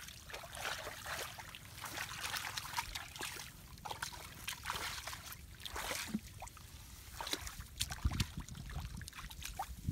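A hoe digging into waterlogged mud, with irregular wet scraping and splashing strokes and water trickling and sloshing.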